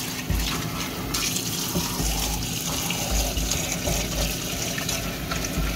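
Kitchen faucet running into a plastic food container in a stainless-steel sink, with splashing as a hand swishes the water around, and a few dull low bumps.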